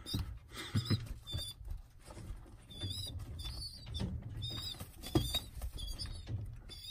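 A young racing pigeon, a squeaker about 18 to 20 days old, giving repeated thin, high, wavering squeaks while it pecks at a hand. Soft taps and rustling run under the squeaks.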